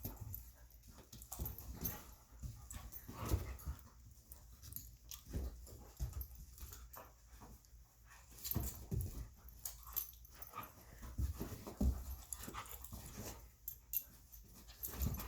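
Two puppies at play: irregular soft thumps and scuffles with panting and small dog vocal sounds.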